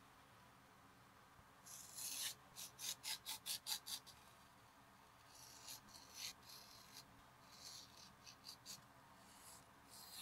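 A knife blade scraping and cutting through a leather strap along a steel ruler, in short, dry strokes. There is a quick run of about eight strokes, roughly four a second, from about two seconds in, then softer, more widely spaced strokes.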